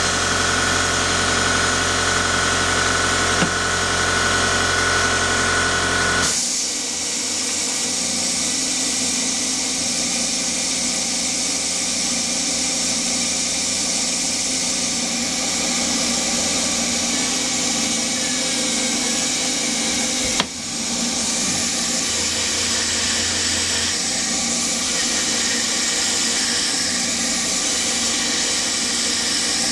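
An air compressor runs with a steady hum and cuts out about six seconds in. That leaves the steady hiss of an air mister and the Hercus PC200 CNC lathe running as it machines 6061 aluminium. There is one sharp click about twenty seconds in.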